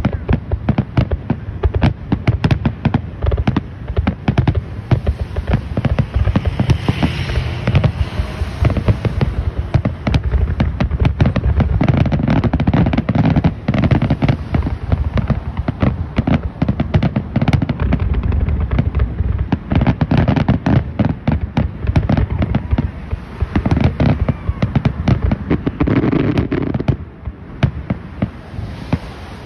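Aerial fireworks display: a dense, continuous barrage of shell bursts, many bangs a second with crackling, dying away near the end.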